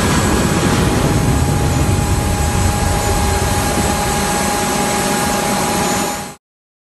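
Boeing 757-200 jet engines running at high power as the airliner climbs away low over the airfield: a loud, dense rumble with a steady whine through it, easing slightly as the plane pulls away. The sound cuts off abruptly about six seconds in.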